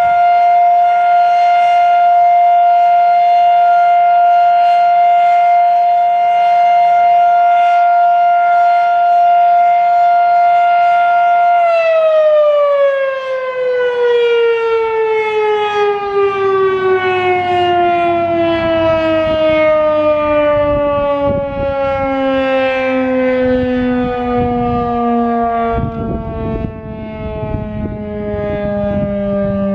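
Federal Electric Fedelcode Model 7 electromechanical tornado siren holding a steady alert tone, then, about twelve seconds in, winding down in a long, smoothly falling tone: the end of the alert, as the motor is cut and the rotor coasts to a stop.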